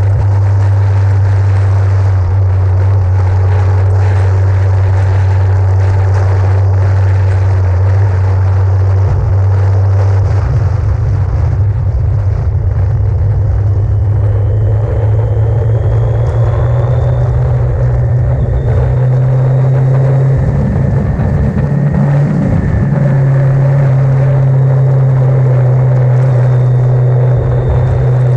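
Yamaha XJ900N inline-four motorcycle running at speed, under a heavy, steady low rumble from wind on the microphone. The low drone shifts up in pitch about a third of the way through.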